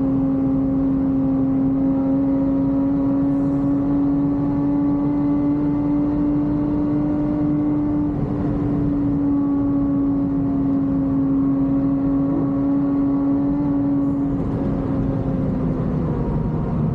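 Lotus Exige 420 Final Edition's supercharged 3.5-litre V6 heard from inside the cabin, held at high revs on track with tyre and wind noise beneath it. The engine note climbs slowly, dips briefly about eight seconds in, then falls in pitch over the last couple of seconds.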